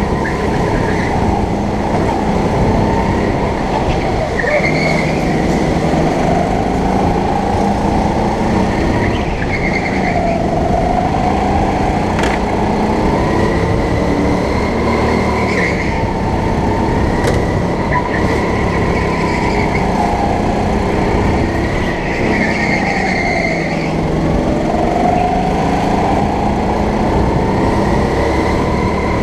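Sodi rental go-kart's motor running at racing speed, heard from the driver's seat, its pitch falling and rising again every few seconds through the corners.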